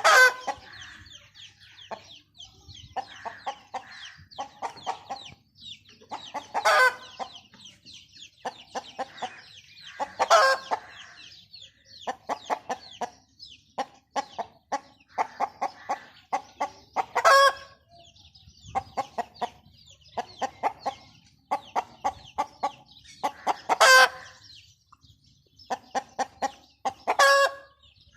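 Chickens clucking continually in short pitched notes, with six louder, short calls spaced several seconds apart, and faint high chirping behind.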